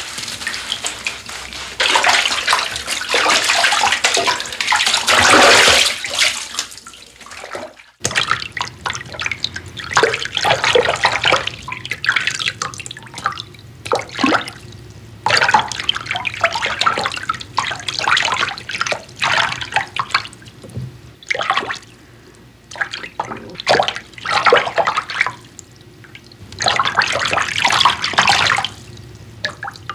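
Bathwater splashing and sloshing in a bubble bath in uneven bursts of varying length, with a brief dropout about eight seconds in.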